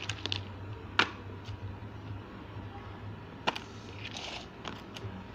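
Colour smoke fountain pieces and their cardboard boxes handled and set down on a marble floor: a few light clicks and knocks, one about a second in and another a few seconds later, over a faint low hum.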